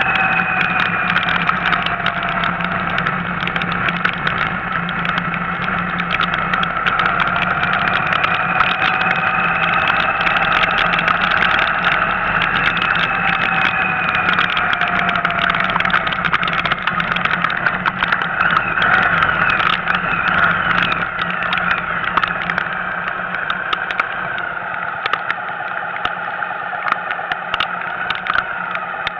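Car driving on rain-soaked streets, heard from inside the cabin: the engine running with its pitch slowly rising and falling with speed, tyres hissing on the wet road and rain ticking on the body and windscreen. It eases off somewhat near the end as the car slows.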